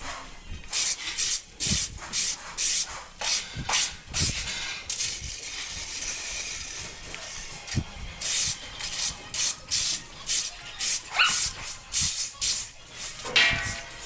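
Stall fork scraping and shaking through horse-stall bedding in quick repeated strokes, about two a second, with a few seconds of steady hiss in the middle.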